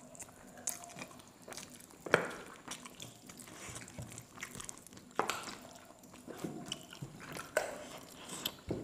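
Close-miked eating with the fingers: chewing and biting into chicken pieces, with wet squishing as rice and curry are mixed by hand. Scattered short smacks and clicks, the sharpest about two seconds in and another about five seconds in.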